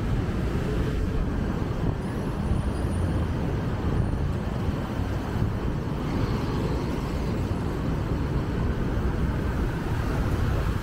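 Street traffic noise: cars passing close by on a city street, a steady low rumble.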